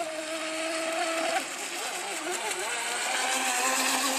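Electric RC speedboat's motor whining steadily. The pitch wavers as it manoeuvres, then settles lower, and the sound grows louder with a hiss of spray as the boat passes close near the end.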